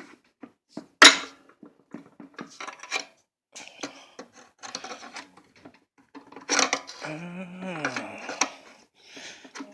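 Metal tools clanking and scraping against a 208 transfer case as its halves are pried apart, with one sharp loud clank about a second in. The case is stuck on a rusted, seized dowel pin and isn't giving. Near the end comes a strained groan of effort.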